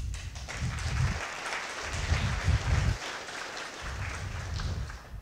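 Audience applauding at the end of a conference talk, stopping abruptly near the end.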